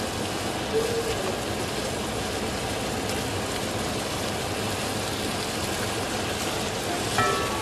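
Mince kebabs and masala sizzling steadily in a pot as they are fried (bhuna), stirred with a silicone spatula.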